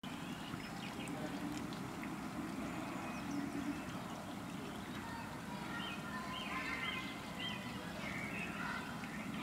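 Water trickling steadily over the stones of a small rock fountain, with a series of short bird chirps from about five and a half seconds in.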